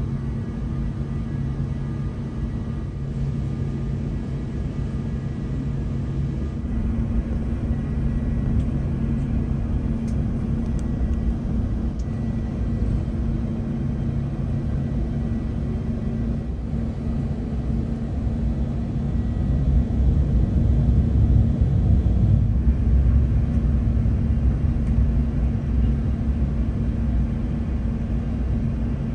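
Cabin noise inside an Airbus A380 taxiing to the runway: a steady low rumble with a constant hum. The rumble grows louder for a few seconds about two-thirds of the way through.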